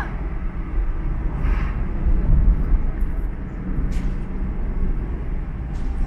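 Car driving along a paved road, heard from inside the cabin: a steady low rumble of engine and tyre noise.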